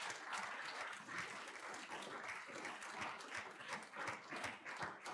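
Audience applauding steadily in a lecture theatre at the close of a talk.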